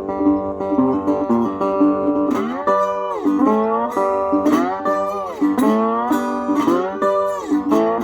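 Instrumental break in a blues-rock song: an electric guitar plays held chords, then from about two seconds in a lead guitar plays notes that swoop down and back up in pitch, in the manner of slide guitar.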